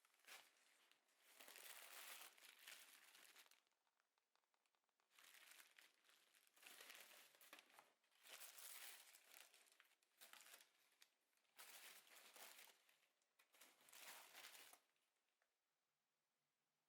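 Crinkling of something being handled, in repeated bursts with short pauses between them, stopping about fifteen seconds in.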